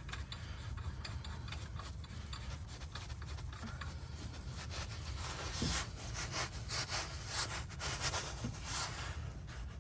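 Metal lug nut being spun by hand down a wheel hub stud, its threads scraping and clicking in quick, irregular ticks that come thicker in the second half.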